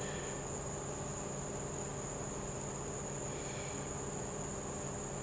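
Steady, high-pitched insect chorus of late-summer crickets, with a faint steady low hum underneath.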